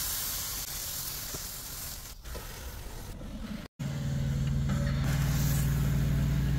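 A steak sizzling in a hot electric skillet. After an abrupt cut about halfway through, a louder, steady low engine hum takes over, with a fainter sizzle under it.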